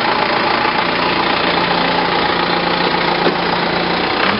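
Tractor engine running steadily at close range.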